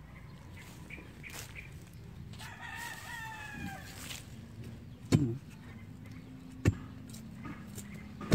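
A rooster crows once, about two and a half seconds in, in one call of under two seconds. Later come two sharp thuds about a second and a half apart, the loudest sounds here, as a bolo knife blade chops into the soil.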